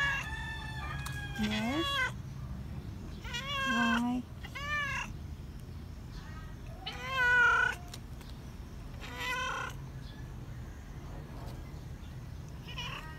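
Domestic cat meowing repeatedly, about seven meows a second or two apart, the loudest about seven seconds in, over a steady low hum.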